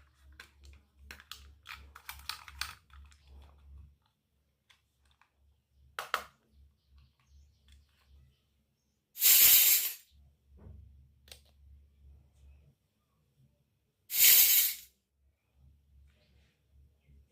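Light clicks and taps of small toy kitchen pieces being handled, then two short, loud bursts of hiss about five seconds apart.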